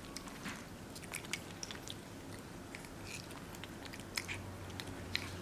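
Capuchin monkey chewing and smacking on a soft, ripe mango: many short, irregular wet clicks and smacks.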